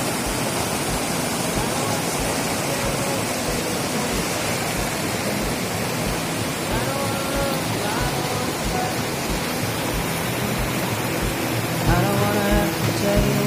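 Rushing water of a rocky river rapid: a steady, even rush of whitewater over boulders. Faint music runs underneath and grows a little louder near the end.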